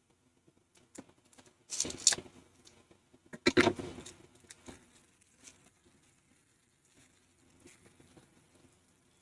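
Plastic shrink-wrap on a DVD case being slit with a knife and torn off: two loud crinkling tears about two and three and a half seconds in, with light clicks and rustles of handling in between.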